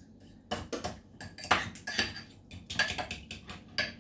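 A spoon clinking and tapping against a bowl while a yogurt sauce is being mixed: many quick, irregular strikes, some ringing briefly.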